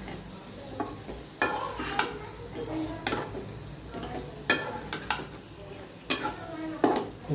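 A spatula stirring lemon pickle frying in oil in a metal wok: the spatula scrapes and knocks against the pan about once a second, over a low sizzle.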